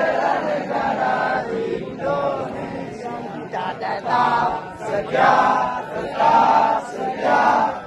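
A large crowd of people singing together in unison, in phrases about a second long.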